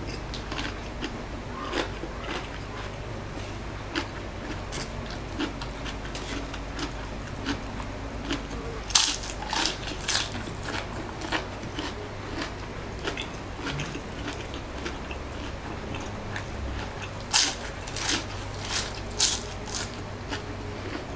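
Close-up biting and chewing of crispy fried lumpiang shanghai (spring rolls), a run of crunches with louder clusters about nine seconds in and again a few seconds before the end. A steady low hum runs underneath.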